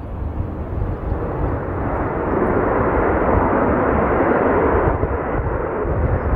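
Jet aircraft passing, the rush of its engines swelling about two seconds in, loudest a few seconds later, then easing slightly.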